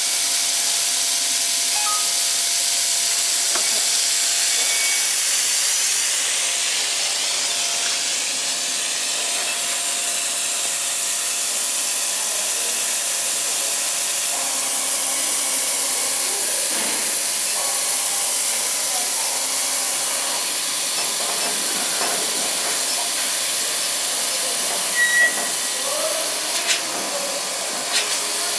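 Steady hiss of air from a laser cutting machine's running air and exhaust equipment. Near the end come a few sharp clicks and a short beep as keys on its control panel are pressed.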